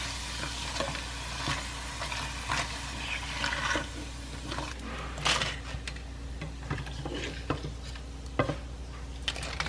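Emping belinjo (melinjo nut crackers) frying in a small pot of hot oil: a steady sizzle with scattered clicks and scrapes as the crackers are stirred with a slotted spatula and lifted out.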